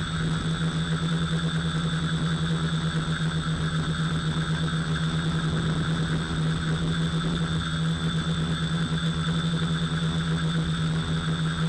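FPV quadcopter's electric motors and propellers buzzing at steady throttle, recorded by the onboard camera, with a fast flutter in the sound.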